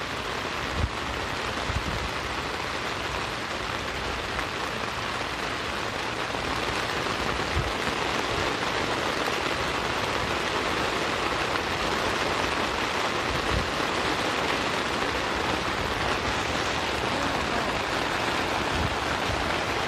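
Steady rain falling on a tent, an even dense hiss that grows a little louder a few seconds in, with a few dull thumps underneath.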